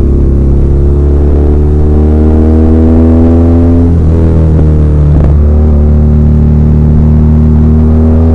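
BMW R1200R's air/oil-cooled boxer twin engine pulling under way, its note rising slowly. The note is broken briefly about four and five seconds in, as at gear changes.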